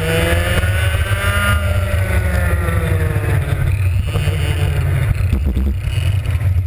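Two-stroke racing kart engine heard onboard, its revs climbing for about a second and a half and then falling away, over a loud steady low rumble.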